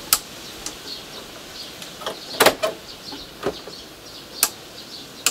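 A few sharp clicks and knocks from switching on and handling a partly dismantled Canon NP-3025 photocopier, the loudest a quick double knock about halfway through. The copier does not start up.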